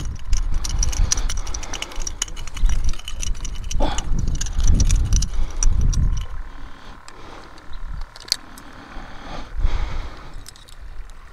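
Low buffeting rumble on the microphone from wind, mixed with many small clicks and rattles in the first seconds; the buffeting dies down after about six seconds, leaving a few scattered clicks.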